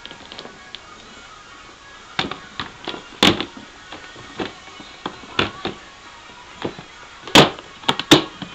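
Sharp knocks and clicks of clear plastic tubs and a wire-mesh lid being handled, about a dozen irregular strikes, the loudest about three seconds in and twice near the end, over quiet background music.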